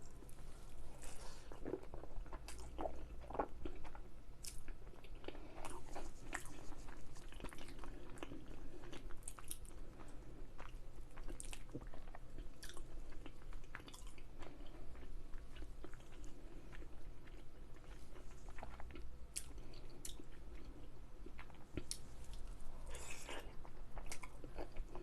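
A person chewing and biting food, with many small irregular mouth clicks.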